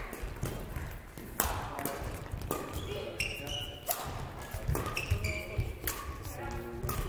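Badminton rally: racket strikes on the shuttlecock about once a second, with sports shoes squeaking and stepping on the court floor between the hits.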